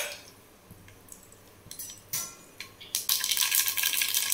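Mustard seeds in hot oil in an aluminium kadai: a few faint pops at first, then about three seconds in a sudden dense crackling as the seeds begin to splutter.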